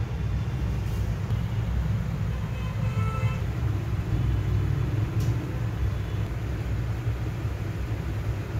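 A steady low rumble, with a brief faint pitched sound about three seconds in.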